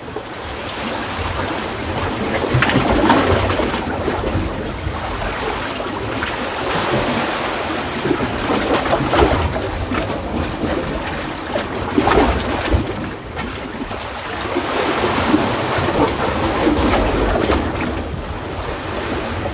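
Seawater surging and washing through a narrow crevice between coral rocks, swelling louder every few seconds as waves push in.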